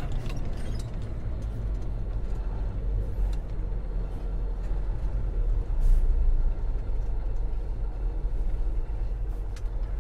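Truck engine rumbling steadily, heard from inside the cab, with scattered cab rattles and knocks and a louder bump about six seconds in.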